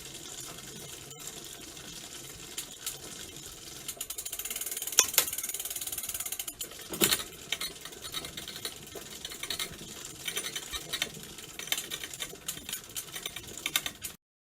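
Bicycle chain rubbing as it runs, a fast, dense ticking rattle. It grows louder about four seconds in, with a few sharper clicks around five and seven seconds in, then turns more uneven and cuts off near the end.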